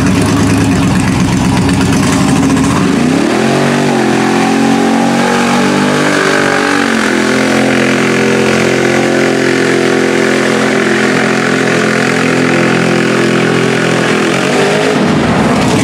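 Mud truck's ProCharger-boosted LSX 454 V8 rumbling low, then revving sharply about three seconds in and held at high revs for about ten seconds as the truck churns through deep mud, with a drop in revs near the end.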